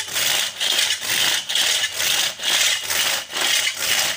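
Thin-bladed hand saw cutting into a log, rasping in steady back-and-forth strokes about two a second.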